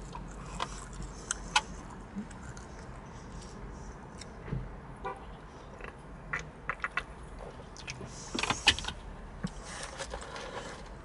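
Small clicks, taps and rustles of someone eating: sipping and swallowing from an aluminium drink can and handling a paper food box. The loudest is a short cluster of knocks about eight and a half seconds in.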